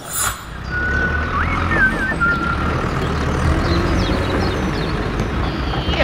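Vehicle engine running steadily with a low rumble that comes up about half a second in. A few short whistle-like tones and upward glides sound over it in the first couple of seconds.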